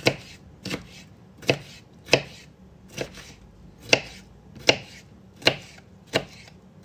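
Chef's knife chopping a sweet red pepper on a plastic cutting board: sharp, evenly paced knocks of the blade on the board, about one every three-quarters of a second.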